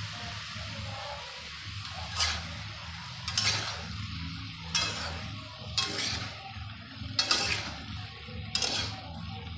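Spatula scraping and clanking against a metal kadhai as cauliflower, potato and tomato are stirred, in strokes about once a second from about two seconds in, over a steady frying sizzle.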